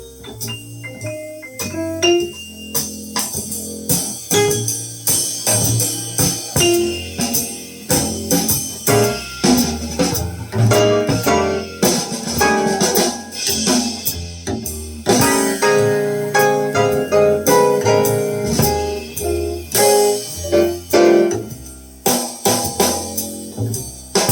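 Jazz recording played back on a hi-fi system: piano with low bass notes and cymbal strokes.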